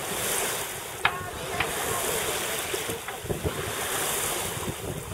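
Water rushing and splashing along the hull of a sailboat under sail, rising and falling in waves, with wind buffeting the microphone. A couple of short, sharp clicks sound about a second in.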